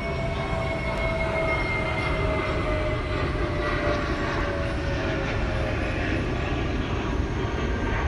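Steady background rumble with a faint whine that slowly falls in pitch.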